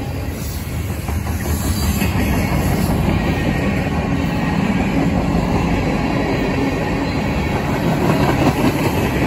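Freight train cars (covered hoppers and tank cars) rolling past close by: a steady rumble of steel wheels on the rails, with a clickety-clack from the wheels crossing the rail joints.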